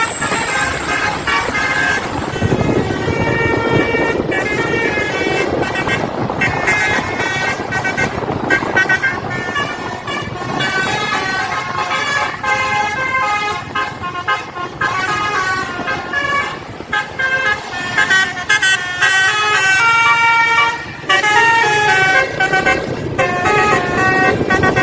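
Tour bus's telolet (basuri) multi-tone electric horn playing a quick stepped melody of short notes, one note after another, over engine and road noise.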